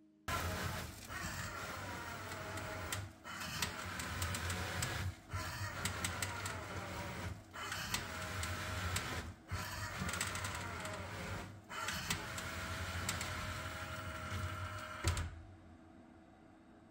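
Lavibot 2 automatic cat litter box running its self-cleaning cycle: the motor drives the perforated sifting grate through the litter. It runs steadily with brief breaks about every two seconds and stops about fifteen seconds in.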